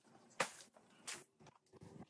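Two short, faint wet swishes, about three quarters of a second apart, on a soaked, foamy rug.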